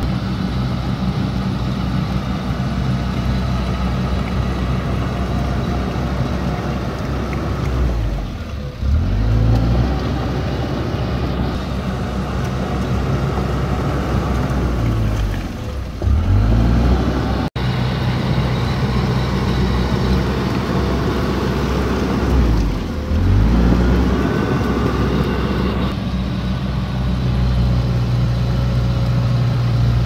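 Komatsu D31P bulldozer's diesel engine running steadily, its pitch sagging and recovering three times.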